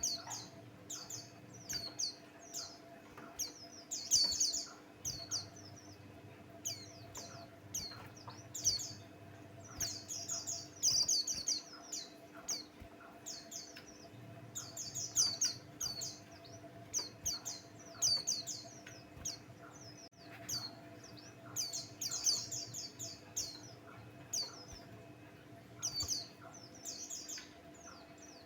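Buxtoni white-eye (pleci) singing a fast, high-pitched chattering song in repeated bursts of quick chirps, a full vigorous (gacor) song of the kind played as a lure to set caged white-eyes singing. A faint steady hum runs underneath.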